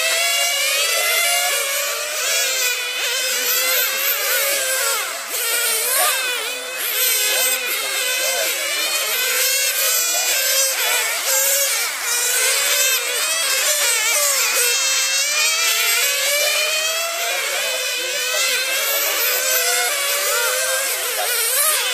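Several radio-controlled model racing cars' small engines revving, many high-pitched notes overlapping and rising and falling continually as the cars accelerate and brake around the track.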